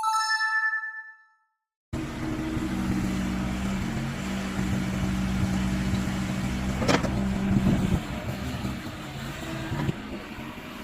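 A short ringing chime fades out at the start. After a brief gap, a heavy-equipment engine runs steadily, with a sharp knock about seven seconds in.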